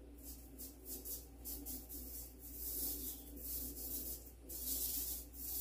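Paint roller working back and forth over a painted surface: a rhythmic swishing rasp of about four strokes a second that runs together into one longer continuous stroke near the end.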